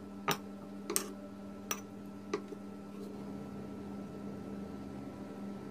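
Four sharp clicks, about two-thirds of a second apart, in the first half, over a steady low hum.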